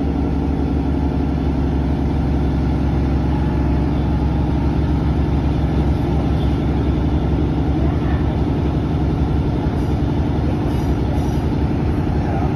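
Diesel multiple unit's underfloor engine running steadily under power, heard from inside the passenger carriage as the train pulls away, with a few faint clicks near the end.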